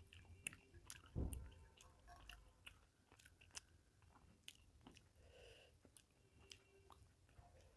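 Faint close-up chewing and mouth sounds of someone eating rice and fish curry: irregular small wet clicks and smacks, with a louder low thump about a second in.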